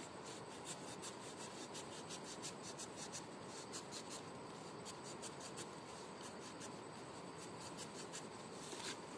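Sickle blade scraping and cutting into a thin green plant stem in quick, short strokes, several a second; faint.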